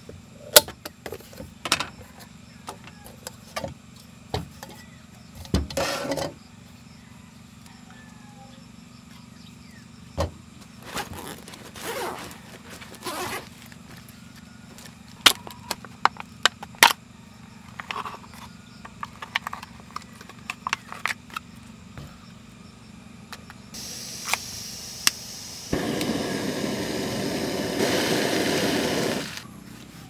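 Small clicks, taps and rustles of camp cooking gear being handled: a Jetboil pot and lid, and a foil-sealed food tray whose foil lid crinkles as it is peeled back. Near the end comes a steady rushing noise that swells and then cuts off suddenly.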